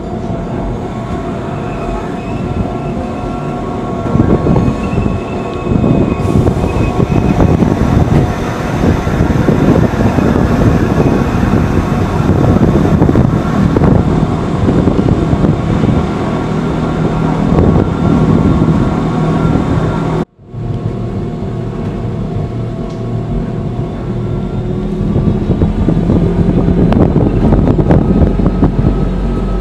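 Train running along the track: a steady rumble of wheels on rail under a constant whine, broken by a brief cut to silence about twenty seconds in.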